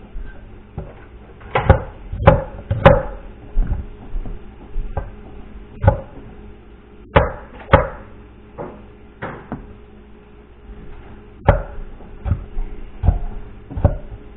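Kitchen knife chopping a peeled vegetable on a wooden cutting board: irregular sharp knocks of the blade against the board, in short uneven runs.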